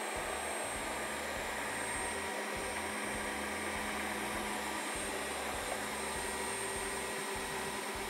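Dreame H12 Pro wet-dry floor vacuum running steadily as it is pushed through a spill of liquid and dry debris, with a thin high whine over its motor and suction noise.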